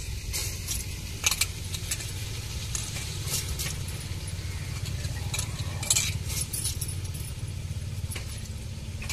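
Metal perforated ladle scraping and clinking at irregular moments against an aluminium cooking pot as soaked basmati rice is added and stirred into soya-chunk masala, over a steady low rumble.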